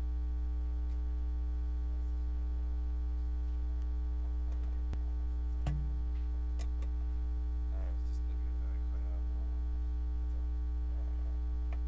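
Steady electrical mains hum in the church sound system's feed, with a few faint clicks and a brief low thump a little before halfway.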